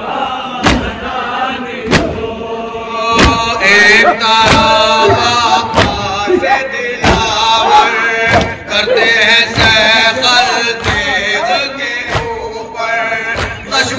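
Male voices chanting a noha in unison, with mourners' hands slapping their chests together in a steady beat about once every 1.3 seconds (matam). The chanting grows louder about three seconds in.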